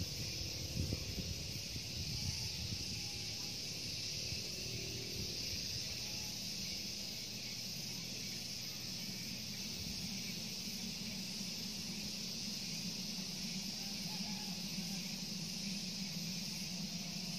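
Steady chorus of insects shrilling in the grass and trees, with a low rumble of wind or ambient noise underneath and a couple of soft low thumps in the first second.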